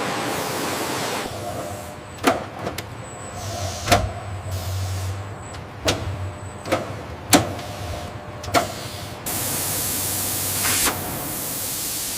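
Factory sounds: a steady hiss, then a string of sharp, irregular knocks and clicks over a low hum, then a steady hiss again from about nine seconds in.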